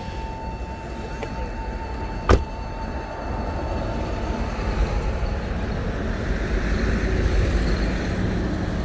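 A car door slams shut about two seconds in, over the steady low running of the Daewoo Lacetti's idling engine and wind on the microphone. A steady high electronic tone cuts off at the moment of the slam.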